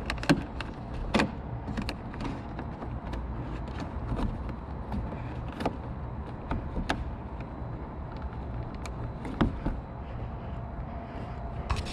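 Irregular sharp clicks and taps of small plastic trim fasteners being handled and fitted into a car's trunk-lid liner, over a steady low rumble.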